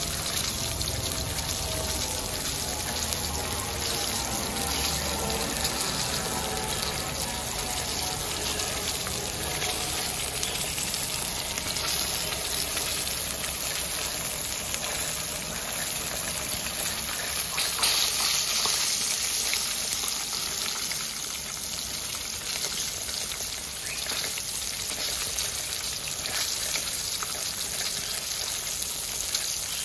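Whole tilapia frying in hot oil in a pan: a steady sizzle with fine crackling.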